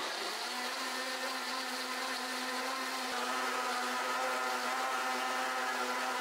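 Blendtec blender running at high speed, puréeing raw pumpkin seeds and cashews in water into a smooth milk: a steady motor whine that winds down at the very end.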